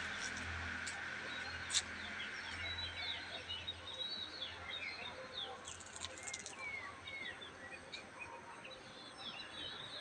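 Small birds chirping: many short, quick, downward-sweeping chirps, repeated over and over. Under them a low traffic rumble fades away during the first few seconds, and there is one sharp click about two seconds in.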